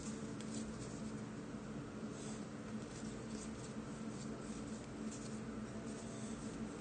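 Soccer trading cards being slid and flicked one by one through a hand-held stack, making faint papery scrapes and light flicks over a low steady hum.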